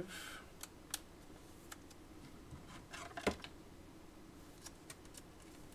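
Light, scattered clicks and taps of small objects being handled on a tabletop, with one louder knock about three seconds in.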